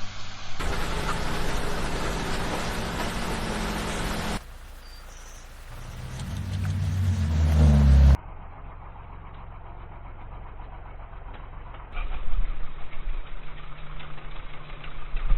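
Engine-like vehicle sounds in several abruptly cut segments. One part swells from quiet to loud over about three seconds and then cuts off sharply. It goes quieter for a few seconds, then comes back louder and rougher near the end.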